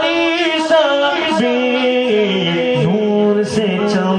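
A man's voice sings a naat in a long melismatic passage. He holds drawn-out notes that step down and wander in pitch, without clear words.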